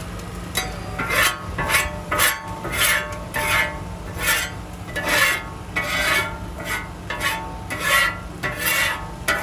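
Metal spatula scraping a steel okonomiyaki griddle in short rasping strokes, about two a second, clearing off cabbage scraps and burnt bits. A steady low hum runs underneath.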